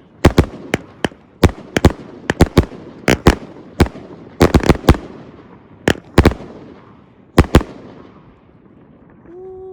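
A finale board of fused firework cakes firing: a quick, irregular string of sharp bangs that thins out and stops about seven and a half seconds in, followed by a fading echo. A man's drawn-out "woo-wee" starts near the end.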